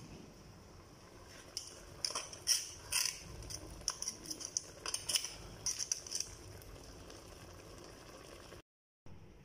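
Metal tongs clicking and clacking against a pot and cooked crab shells as crabs are turned in coconut milk sauce: a quick run of sharp clicks for several seconds. The sound cuts out briefly near the end.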